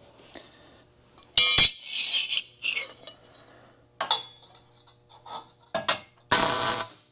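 Steel tubing and fixturing clanking and clinking as a tube cross member is set on a truck's rear frame, with a loud clank about a second and a half in. Near the end comes a short burst of MIG welding, about half a second long: a tack weld holding the cross member in place.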